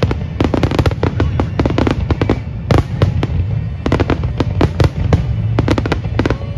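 Dense barrage of aerial firework shells bursting, many sharp bangs in quick, uneven succession over a continuous low rumble.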